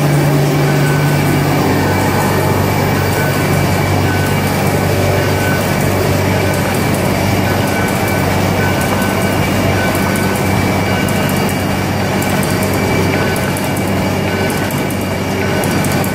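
Semi-automatic kraft paper bag making machine running: a steady mechanical clatter over a low motor hum, with a steady high whine and a higher tone that comes and goes.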